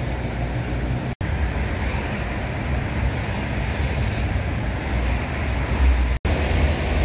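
Inside a lorry cab on the move: the diesel engine's steady low rumble with tyre and road noise. The sound drops out for an instant twice.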